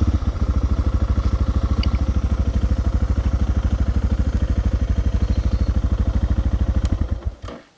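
Suzuki DR650 single-cylinder four-stroke engine idling with an even, rapid beat, then switched off about seven seconds in, its firing slowing and dying away.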